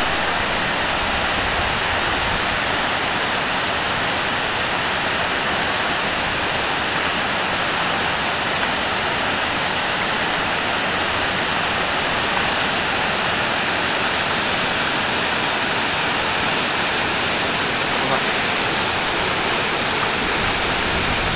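Steady rush of river water pouring over a low concrete weir, an even hiss with no breaks.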